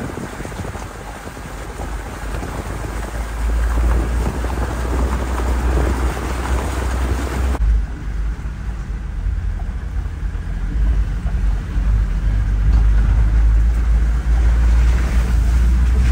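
Off-road vehicle driving on a gravel forest road: wind and road hiss. About halfway through it changes abruptly to a steady low engine and tyre rumble heard inside the cab.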